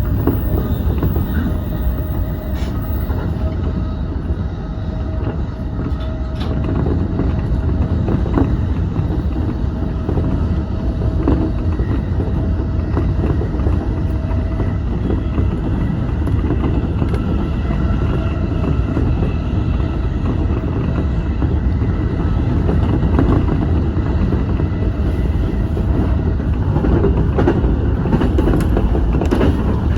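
Electric commuter train running steadily along the line, heard from inside the train: a constant rumble of wheels on rail with faint steady tones over it and a few brief clicks.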